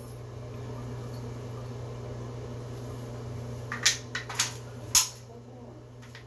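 Four sharp clacks, the last the loudest, a little past the middle: a wooden alphabet puzzle piece knocking against the wooden puzzle board as it is fitted into its slot. A steady low hum runs underneath.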